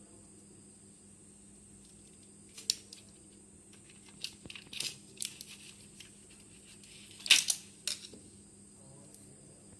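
Handling noises during bench work: a few sharp clicks and short rustles, about two and a half seconds in, again around four to five seconds, and loudest near seven and a half seconds. Underneath runs a steady low hum with a faint high whine.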